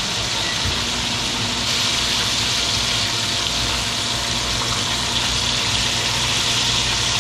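Fish fillets frying in a skillet of hot oil: a steady, even sizzle.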